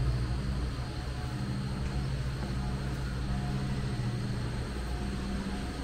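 A steady low mechanical hum with an even, unchanging pitch.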